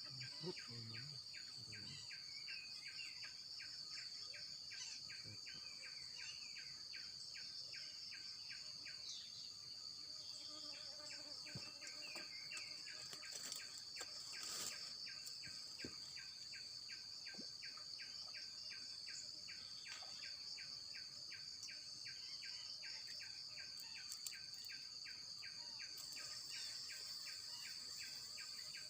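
Steady high-pitched insect drone, with a rhythmic chirping call repeated several times a second beneath it.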